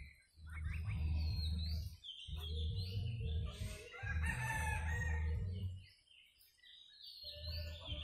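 Domestic geese and other fowl calling in short calls, with one longer call about four seconds in, over a low rumble that drops away for a couple of seconds near the end.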